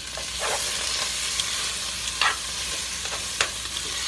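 Onions, green pepper, tomato paste and spices sizzling as they fry in a pot, with steady frying hiss. A few short clicks of the spoon against the pot come as they are stirred.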